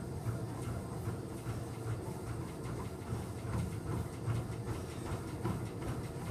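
Steady low rumble of background room noise, with faint light ticks now and then.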